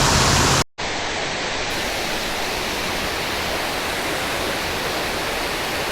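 Steady rushing of water pouring over a creek spillway waterfall. Under a second in it cuts out completely for a moment, then carries on a little quieter.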